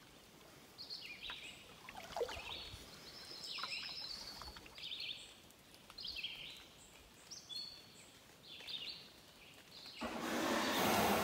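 Songbirds singing, a run of short high chirping phrases repeated every second or so. About ten seconds in, a louder scraping rush lasting just over a second as the pack canoe's hull runs aground on the sandy shore.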